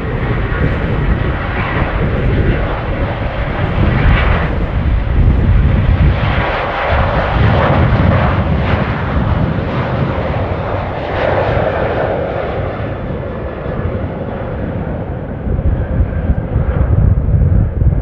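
Boeing 737-800's twin CFM56-7B turbofan engines running at takeoff thrust as the airliner accelerates along the runway on its takeoff roll: a loud, continuous jet noise that swells and eases as it passes, with the nose lifting for rotation near the end.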